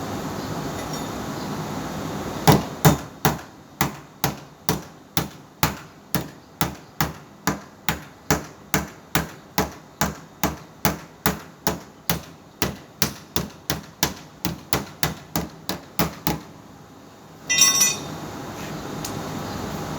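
Hammer tapping on sheet metal in a steady rhythm, about three strikes a second for some fourteen seconds: tinsmith panel-beating work. Near the end comes a short ringing metallic clatter.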